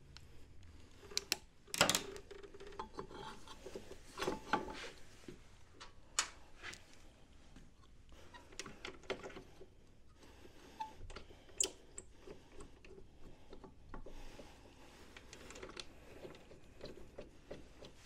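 Irregular clicks, light metal knocks and rubbing from hands and tools working on a scooter's front disc brake caliper as it is fitted back over the disc, the loudest knock about two seconds in.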